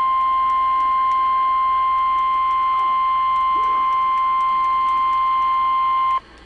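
NOAA Weather Radio warning alarm tone played through a Midland weather radio's speaker: one steady, loud, high single tone that cuts off abruptly about six seconds in. The tone is the signal that a warning broadcast, here a severe thunderstorm warning, is about to follow.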